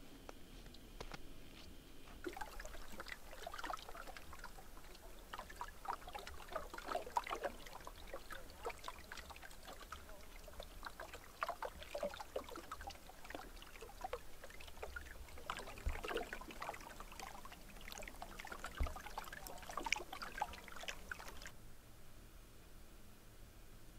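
Small waves lapping and trickling against a lake shore in quick, irregular little splashes. The sound stops abruptly near the end.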